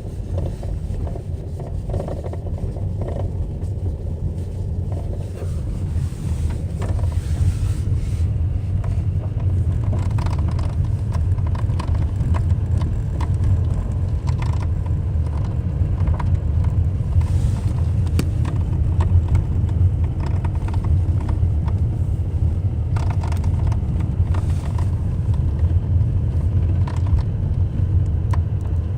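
Renault Mégane III driving slowly over gravel: a steady low rumble with scattered short knocks at irregular intervals, the knock the owner cannot identify.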